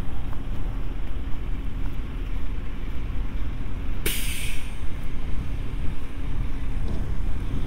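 Steady low rumble of wind and road traffic, with a sudden hiss lasting about half a second about four seconds in.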